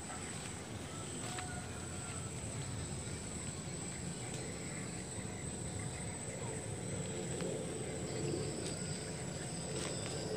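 Quiet outdoor ambience: a steady low rumble with a thin, constant high-pitched whine and a few faint ticks.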